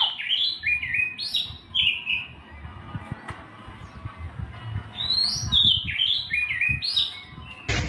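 A songbird singing: two phrases of short whistled notes that step downward in pitch, one at the start and one about five seconds in, over a low rumble.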